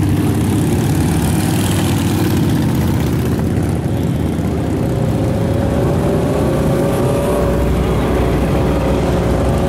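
Cruiser motorcycles and hot rod cars driving past one after another, their engines making a steady low rumble, with one engine note rising gently from about halfway.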